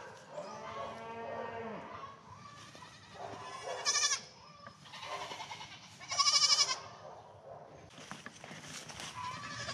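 Young goats bleating: two loud, high bleats about four and six and a half seconds in, with a softer, lower call in the first two seconds.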